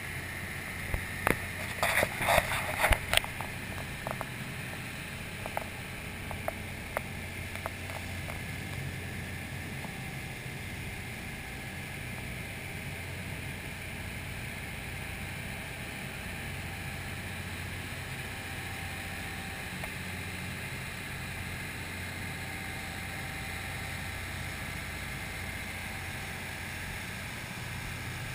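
Passenger boat under way: a steady low engine hum with the rush of the hull's wake through choppy water. A cluster of sharp knocks about two to three seconds in.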